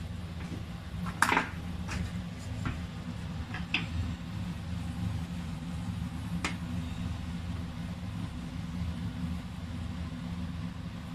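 Fenugreek seeds frying in hot oil in a pot: a few sharp pops and crackles, the loudest about a second in, over a steady low hum.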